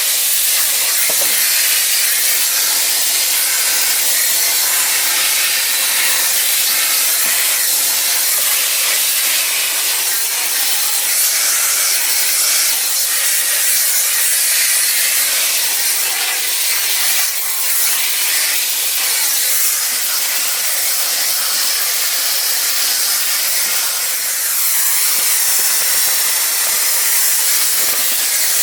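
Electrolux Ergospace canister vacuum cleaner running steadily while vacuuming inside a car: a loud, even airflow hiss, mostly high-pitched, that shifts slightly now and then as the nozzle moves.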